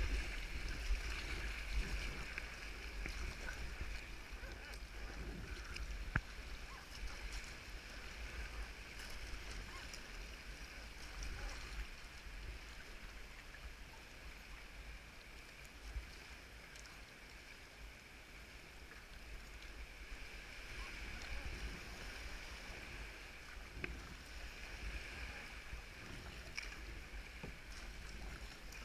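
Kayak being paddled on the sea: a steady wash of water around the hull and paddle over a low rumble, with a few light knocks.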